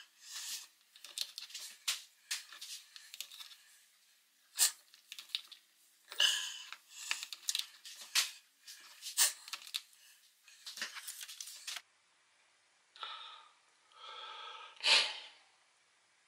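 Someone eating a fish patty sandwich: irregular crisp bites and chewing noises, with some crinkling, and a few breathy mouth and nose sounds near the end.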